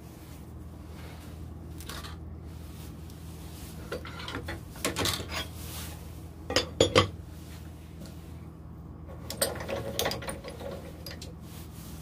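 Metal clanking and rattling of a wood lathe's tool rest being loosened and moved, in two bursts of clatter a few seconds apart, over a steady low hum.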